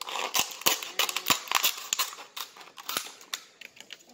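Plastic being handled: irregular clicks and crackles from a cut plastic bottle and plastic wrapping.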